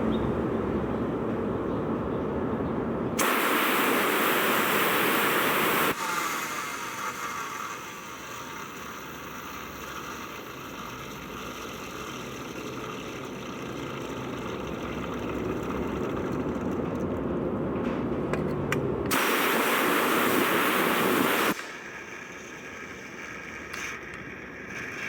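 Peugeot 307 2.0 engine running, with noise coming from the accessory-belt idler pulley. Two stretches of loud, even hiss of a few seconds each cut in, a few seconds in and again about three-quarters of the way through.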